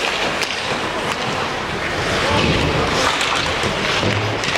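Ice hockey in play in a small rink: skates scraping the ice and sticks clacking on the puck, a few sharp clicks over a steady noisy hiss.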